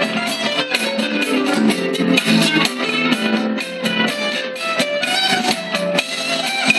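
Electric guitar played through a small amplifier: a quick, continuous run of picked single notes.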